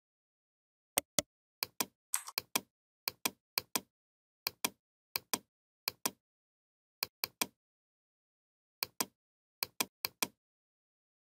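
Computer mouse clicking: about a dozen sharp clicks, mostly in quick press-and-release pairs, one pair every half second to a second and a half.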